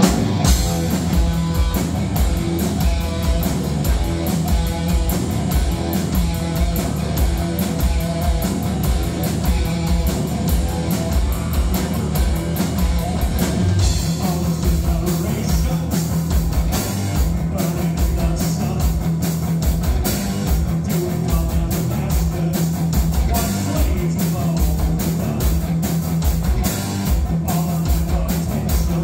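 Live rock band playing loud: distorted electric guitar, electric bass and drum kit with a steady, driving beat, and a lead singer's vocals over them.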